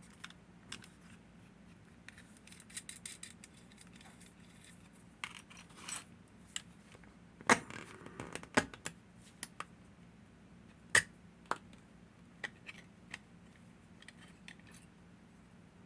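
Scattered small metallic clicks and clinks as a gutted Hori 1601 lever padlock is handled and opened back up, with a few louder clacks midway.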